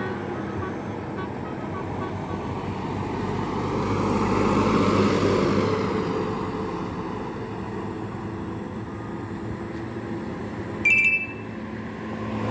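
Bus engine running on the road with traffic noise, swelling louder about four to six seconds in. A brief, loud, high-pitched beep sounds near the end.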